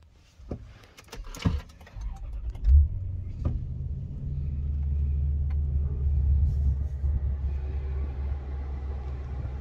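Toyota Land Cruiser 4.7-litre V8 engine starting about two seconds in, with a brief loud flare as it catches, then idling as a steady low rumble. A few sharp clicks come before it.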